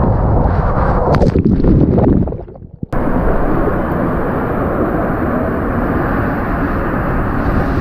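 Water and a rider rushing down an enclosed water-slide tube: a heavy, rumbling, crackling rush of water buffeting the microphone that fades out. About three seconds in it cuts to a steadier, even rush of water as a ride on an inflatable tube begins.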